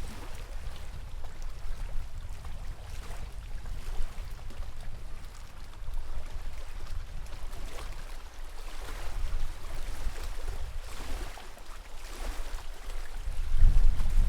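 Lake water lapping and splashing in soft washes every few seconds, with wind rumbling on the microphone that gusts up near the end.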